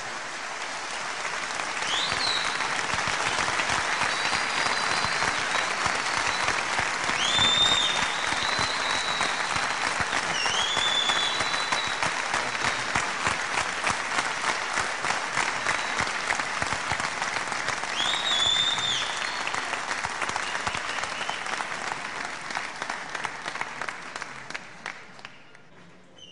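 Concert audience applauding and cheering at the end of a song, with several high whistles. The applause swells over the first few seconds, holds, then dies away near the end.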